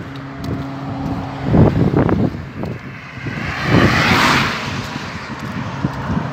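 Highway traffic noise, with a vehicle passing about four seconds in, its tyre and engine noise swelling and fading.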